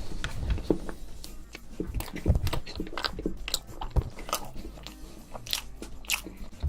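Close-miked eating: a person biting and chewing crunchy food, with a string of irregular sharp crunches.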